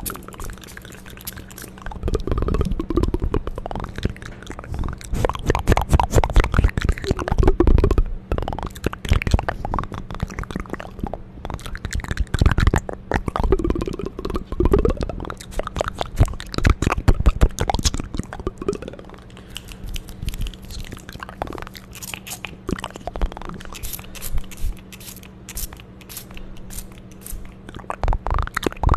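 Close-miked ASMR mouth sounds: dense wet clicks, smacks and crackles with deep low thuds, coming in waves of activity.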